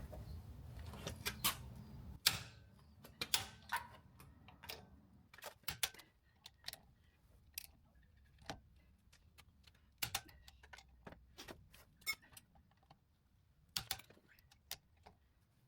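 Click-type torque wrench and socket on caravan wheel nuts, giving short, sharp clicks and clacks about once a second, with irregular gaps. The wrench is set to 135 Nm, so its clicks mark each nut reaching torque as they are done up in a crisscross order.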